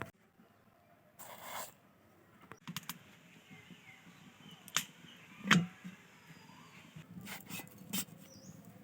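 Intermittent kitchen clatter: a short scrape near the start, then a few sharp knocks and clinks of utensils or dishes, the loudest about five and a half seconds in.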